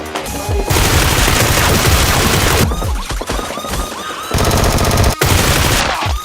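Automatic gunfire sound effects, laid over the action, with background music. A long dense stretch of fire runs through the first half, and a fast burst of rapid shots comes about four seconds in.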